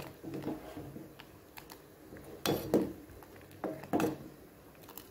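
Steel spoon stirring milk in a stainless steel pan, knocking against the pan: faint light taps, then two pairs of sharper clinks about a second apart.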